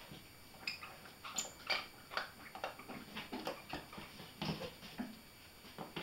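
Border collie puppy chewing and gnawing a yellow rubber toy bird: irregular short clicks and crunches, a few a second.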